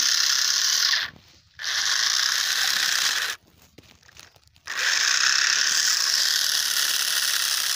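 Small electric motor and plastic gearbox of a homemade toy tractor running under a heavy towing load, a steady grinding whir. It cuts out briefly about a second in and again for over a second near the middle, then runs on.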